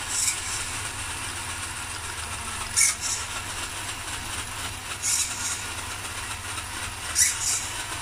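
HSP Brontosaurus electric RC monster truck running on a stand with its wheels spinning in the air: a steady motor and drivetrain whir, with a short higher burst about every two seconds.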